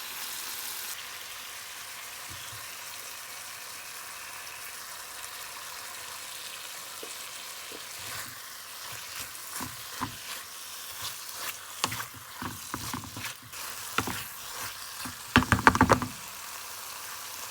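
Chicken curry mixture sizzling steadily in a frying pan. From about halfway through, a spoon stirs and knocks against the pan in short scrapes and taps, with a louder clatter near the end.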